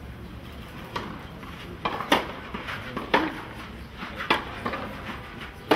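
Tennis ball struck back and forth by racquets in a baseline rally on a clay court: a string of sharp hits, the strongest about a second apart, starting about a second in.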